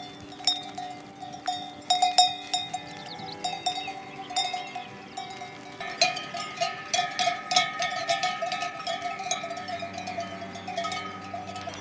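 Many animal bells clanking and ringing irregularly, as on a herd of livestock moving about, the strikes thickening about halfway through.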